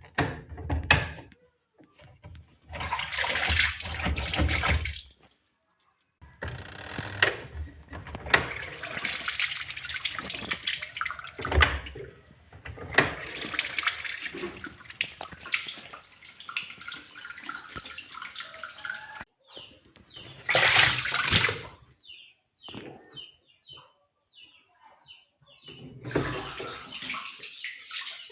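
Water from an LG washing machine gushing and splashing as it drains, in several separate stretches broken by short gaps.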